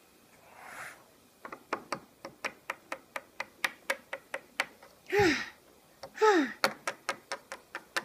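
Plastic Lego bricks tapping repeatedly on a wooden tabletop, about four sharp taps a second, as a small brick-built figure is hopped along. A person's voice twice makes a short sound falling in pitch between the runs of taps.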